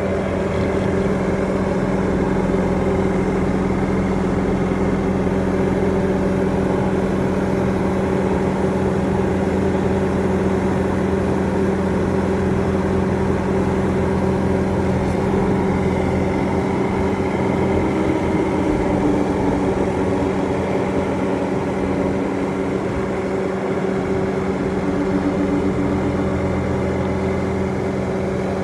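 Diesel engine of a Bobcat T750 compact track loader running steadily at a constant speed, operating normally.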